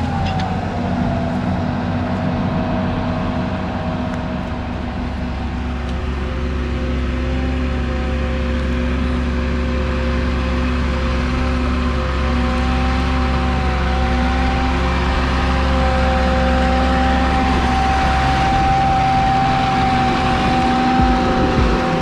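Ford 9700 tractor's six-cylinder turbo diesel running steadily under load as it pulls a reversible plough, its engine note dipping slightly at the start and rising gently later on.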